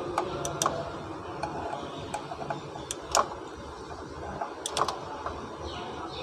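Sharp metallic clicks and taps from a small hand tool and the parts of an automatic transmission valve body being worked on. There are a few scattered clicks, the loudest about three seconds in, and a quick cluster of them near five seconds.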